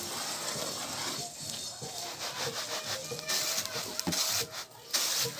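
Beaten rice flakes rustling and sliding on a round bamboo winnowing tray as they are worked by hand. From about three seconds in the tray is shaken, giving repeated bursts of rustling.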